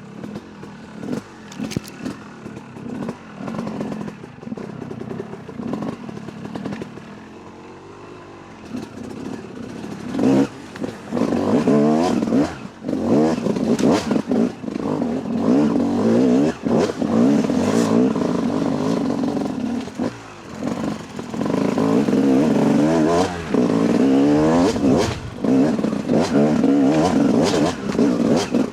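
Yamaha YZ250 two-stroke dirt bike engine. For the first third it runs low under light throttle, with knocks and clatter from the bike over rocks. Then it revs hard in repeated bursts, its pitch rising and falling as the throttle is opened and shut.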